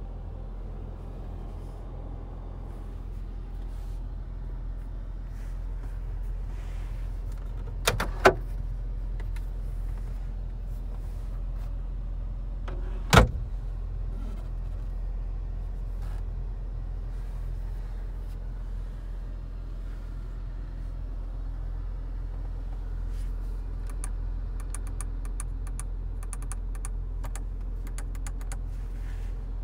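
Audi SQ5's turbocharged V6 idling with a steady low rumble. Two sharp clicks sound about eight and thirteen seconds in, and a run of light ticks comes near the end.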